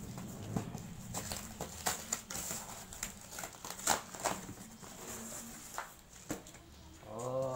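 A cardboard shipping box being pulled and torn open by hand: an irregular run of crackling, ripping and rustling of cardboard. A short vocal sound comes near the end.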